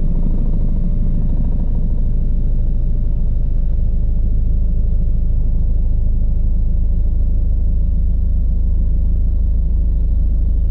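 Bell 429 twin-turbine helicopter running steadily: a loud, even low rumble of rotor and engines.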